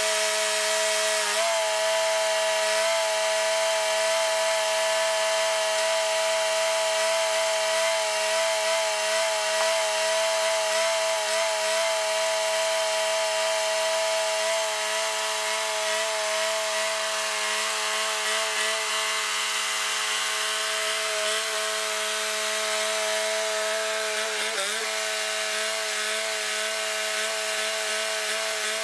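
Band sawmill cutting lengthwise through a Sitka spruce log: the mill's engine runs steadily under load with the blade's hiss of cutting wood, easing slightly in level as the saw head travels away along the log. The engine pitch dips briefly about 25 seconds in.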